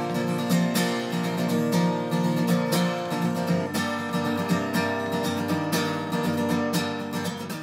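Background music: acoustic guitar strumming, many quick plucked chords.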